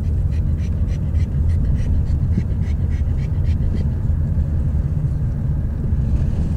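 Steady low rumble of a moving car heard from inside the cabin: engine and tyre road noise.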